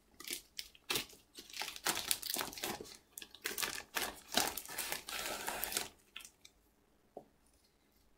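Comic books being handled: rustling and crinkling of paper and covers as one is set aside and the next picked up, stopping about six seconds in.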